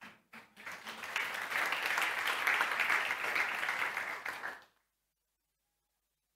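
Congregation applauding: a dense patter of many hands clapping that builds and holds, then cuts off abruptly after about four seconds, leaving dead silence.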